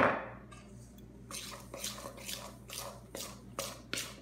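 A spoon scraping and clinking against a stainless-steel mixing bowl in short strokes, two or three a second, working ice water into flour, shortening and butter for pie dough. A sharp clink at the very start is the loudest sound.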